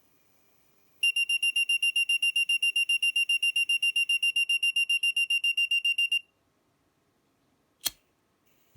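Active buzzer of a homemade LM358 fire alarm circuit sounding a high-pitched beep that pulses rapidly, about eight times a second, for about five seconds and then stops: the alarm has been set off by heat on its thermistor. A single sharp click follows near the end.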